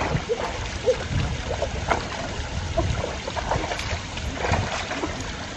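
Muddy stream water sloshing and swirling as people wade and drag a mesh net with a chain-weighted bottom line through the shallows, with scattered small splashes.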